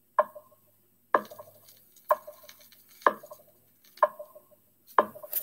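Sharp knocks of a hard object, evenly spaced about one a second, each with a brief ringing, and two in quick succession near the end.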